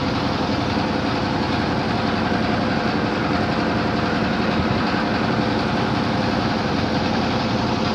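Boat engine running steadily, an even mechanical drone.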